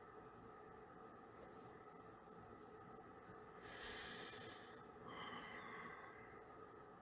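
Quiet room hum with a few faint ticks, then one audible breath close to the microphone about four seconds in, followed by a softer breathy sound.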